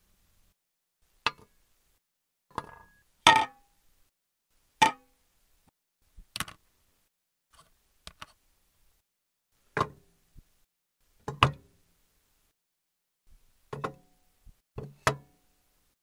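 Small objects being put down and dropped on a metal surface, about a dozen separate short knocks and clanks with silent gaps between them, a few leaving a brief ring.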